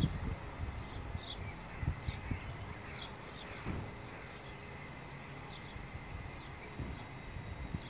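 Outdoor railway-side ambience: small birds chirping in short, repeated high calls over a low, uneven rumble, with a few dull thuds near the start, about two seconds in and just under four seconds in.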